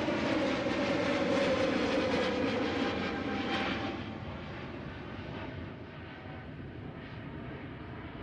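Jet airliner's engines roaring past close by, with a slowly falling tone. About four seconds in, the sound drops and loses its hiss as the aircraft moves away.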